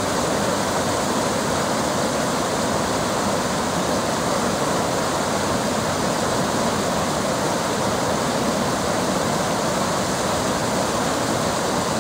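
Shallow stream rushing steadily over stones and moss beds, an even, unbroken water noise.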